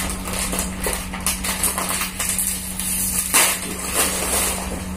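Crinkling and crackling of small plastic snack packets being handled and torn open by hand, an irregular run of sharp crackles over a steady low hum.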